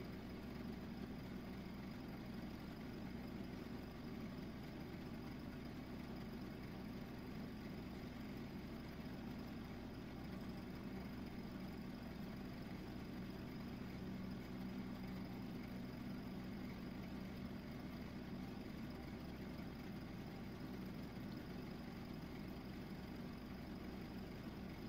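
A faint, steady low mechanical hum with a light hiss over it.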